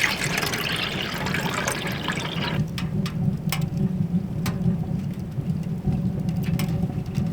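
Water being poured into a pot to make coffee. The pouring stops about two and a half seconds in, leaving a steady low rumble and a few light clicks; the rumble cuts off suddenly at the end.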